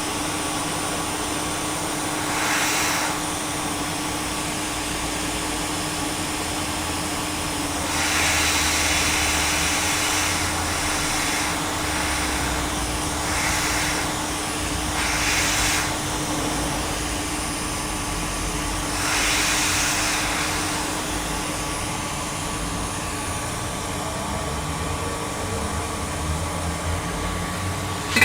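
Steady whir of an electric air blower with a constant hum. Several louder rushes of air come about 3, 8 to 12, 13 to 16 and 20 seconds in.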